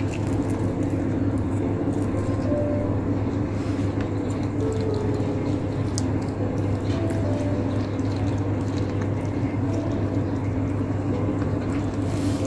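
A cat chewing cooked chicken wing, with small crunching clicks, over a steady low hum.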